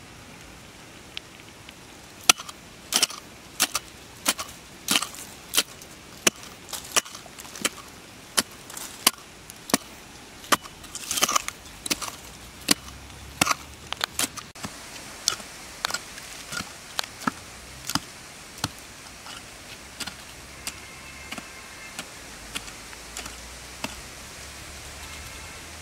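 A small hand hoe chopping into dry dirt again and again, at about one or two strikes a second. The strikes grow softer and sparser after about fifteen seconds.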